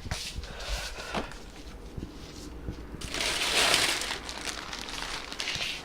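Plastic bag crinkling and rustling as it is handled, with a louder stretch of rustling starting suddenly about three seconds in.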